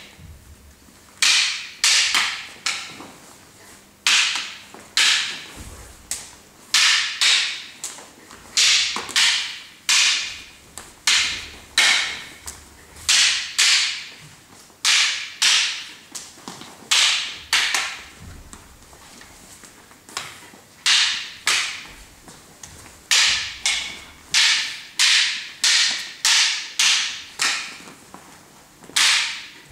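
Arnis sticks clacking together in irregular sharp knocks, often two or three in quick succession and about one to two a second overall. These are the strikes and blocks of a slow randomized espada y daga stick drill.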